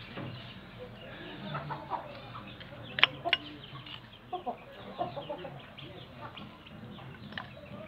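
Chickens clucking in the background, with two sharp clicks close together about three seconds in.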